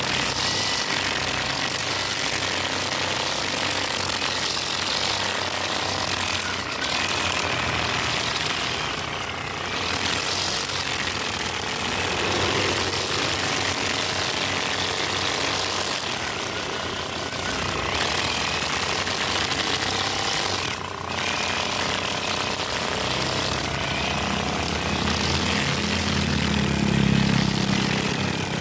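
A motorized grass cutter running steadily, its engine buzz mixed with the hiss of cutting. A deeper rumble builds near the end.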